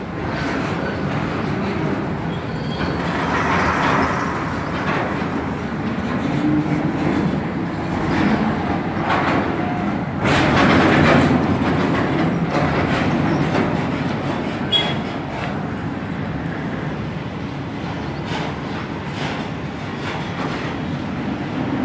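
Steady mechanical rumble of heavy port machinery, with scattered metallic clanks and knocks. It grows louder for a couple of seconds about ten seconds in, and there is a sharp knock near fifteen seconds.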